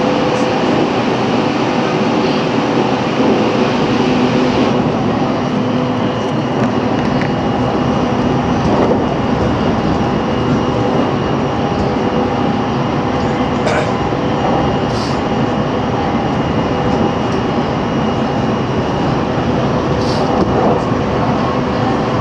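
JR Central 313 series electric train running at steady speed, heard from the motor car's front cab: a continuous rumble and hiss of wheels on rail with steady whining traction-motor tones, and a few sharp clicks.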